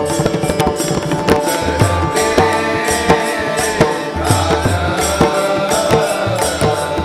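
Instrumental interlude of a Marathi devotional abhang with no singing: a hand-drum rhythm with deep bass strokes, over steady held melodic tones, with bright metallic cymbal strikes on the beat.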